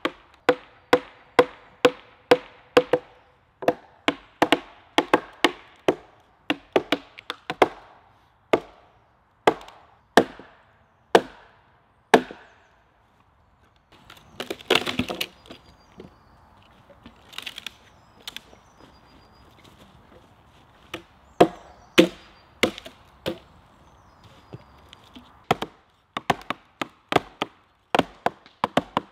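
Axe and wooden mallet striking cedar logs, a quick run of sharp woody knocks about two a second as the logs are chopped and split. About 15 s in there is a crackle of splintering wood, then a lull with a few scattered blows, and from about 21 s the steady strikes start again.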